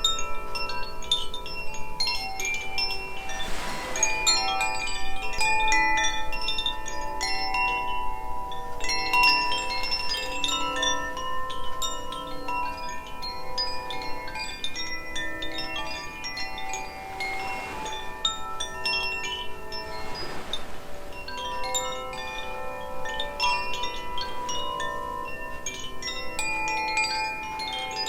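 Two Koshi wind chimes, Aria (air) and Ignis (fire), ringing together: clusters of bright bell-like tones overlap and sustain continuously, with fresh strikes every few seconds.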